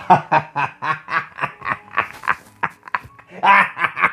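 A person laughing: a fast run of short ha-ha pulses, about six a second, that fades, then a louder burst of laughter near the end.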